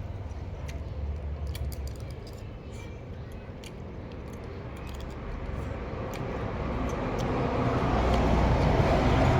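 A passing vehicle: a steady rush that swells over several seconds to its loudest near the end, with a few faint clicks on top.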